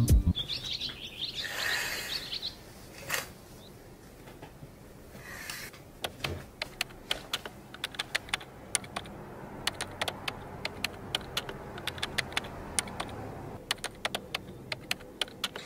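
Birds chirp briefly at the start. From about six seconds in comes a run of quick, irregular typing clicks, several a second, from thumbs typing on a smartphone keyboard.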